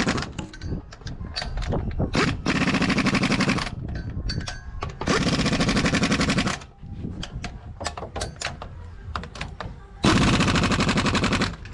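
Cordless impact wrench hammering on the tailshaft-to-rear-diff flange bolts of a Ford Ranger: four bursts of rapid rattling about a second or so each, with a few metallic clicks in between.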